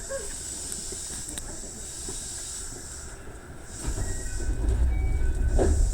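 Electric commuter train running, heard from on board: a steady hiss over a low rumble, with the rumble growing louder about four seconds in.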